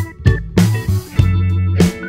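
Background pop song with guitar over a steady drum beat.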